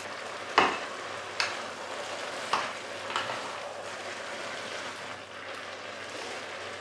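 A wooden spoon stirs and presses dry ramen noodles down into a stainless steel pot over a steady sizzle from the pot. In the first half, the spoon knocks sharply against the pot four times.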